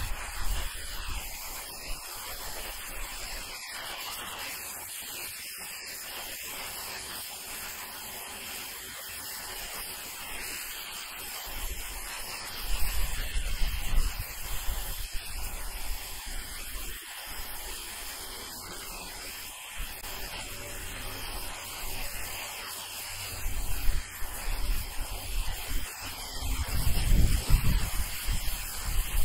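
High-pressure water jet from a Ryobi RY141612 1600 psi electric pressure washer's turbo nozzle hissing steadily as it blasts moss off asphalt roof shingles. Wind rumbles on the microphone twice, in the middle and more strongly near the end.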